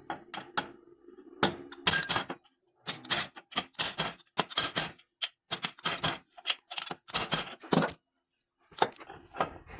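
Quick repeated metal-on-metal taps, about three a second, with a short pause near the end: a new washing-machine transmission bearing being driven onto its shaft with the old bearing set on top as a drift, so the new one is not dented.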